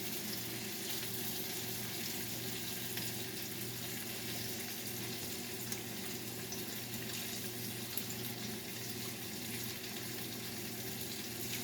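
Oil sizzling steadily in a pan of frying salmon: an even hiss with faint scattered crackles over a steady low hum.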